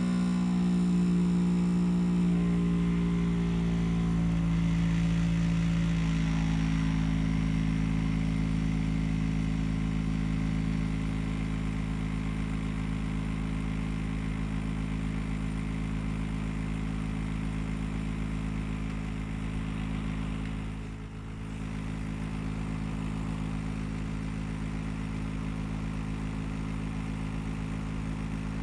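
Gree air conditioner running with a loud, steady drone of several low tones. The tones step in pitch a few times early on, then hold, with a brief dip in level about three-quarters of the way through. This is the abnormal loud noise the owner reports as a problem with the unit.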